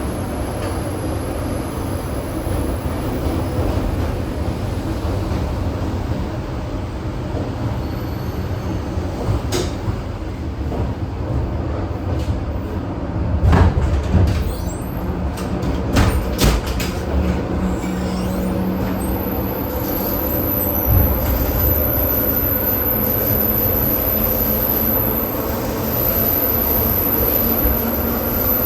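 ED4M electric multiple unit running along the line, heard from inside the car: a steady rumble of wheels and running gear, with a run of sharp knocks in the middle.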